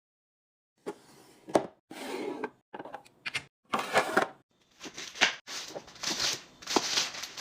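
After a moment of silence, a quick run of clicks, knocks and rustles as containers and packaging are handled and set down while a fridge is restocked.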